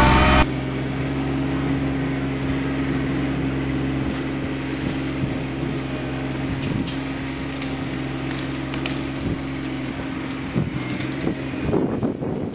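John Deere 2320 compact tractor's three-cylinder diesel engine running steadily. It is loud and close for the first half second, then heard from across the field as it works the front loader. Irregular crackles come near the end as the tractor pushes into the brush pile.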